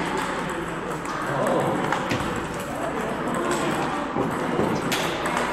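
Table tennis rally: a ping-pong ball clicking off the paddles and bouncing on the table, a few sharp knocks at irregular spacing.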